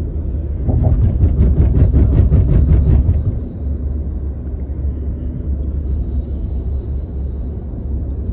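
Road and tyre rumble heard from inside a moving car: a low, steady drone. About a second in it grows louder for two seconds, with a quick run of regular taps, about six a second.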